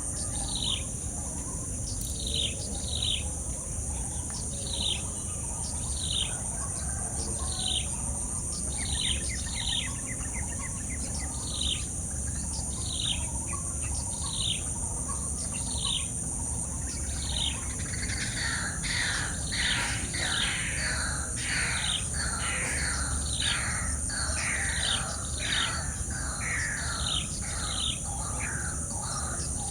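Wild birds calling with short, high, falling whistled notes, often in pairs, repeated about once a second. Past the middle, a second bird joins with a faster run of louder falling notes. A steady, high-pitched insect drone runs underneath.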